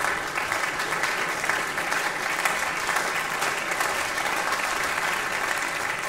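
Concert audience applauding steadily, a dense even clapping.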